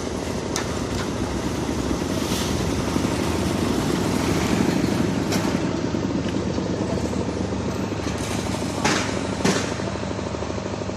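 An engine running steadily with a fast, even pulse, and a few sharp knocks over it, the loudest two close together about nine seconds in.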